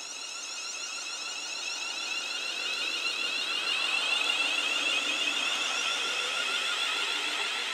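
Class 350 Desiro electric multiple unit passing at speed, its traction motors giving a high-pitched whine of several tones. The whine grows louder as the train approaches and peaks about four seconds in as it passes close by.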